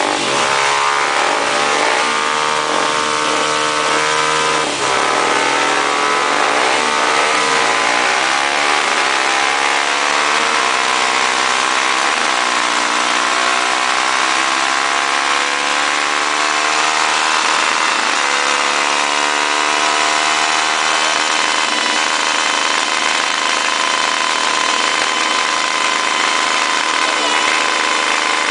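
Honda 250 cc single-cylinder motorcycle engine under load on a dynamometer, revs climbing. The pitch wavers up and down over the first dozen seconds, briefly drops about five seconds in, then rises steadily and holds at high revs for the last several seconds.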